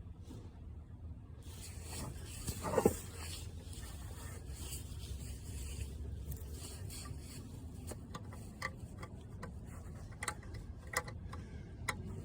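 Wiring connectors being handled and pushed into a car audio amplifier: plastic rubbing with one louder squeak about three seconds in, then several short sharp clicks in the second half as plugs seat.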